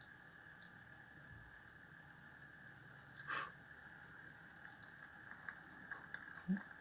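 Quiet room tone with a steady faint hiss, broken by one short breathy noise about three seconds in and a few small clicks of handling near the end.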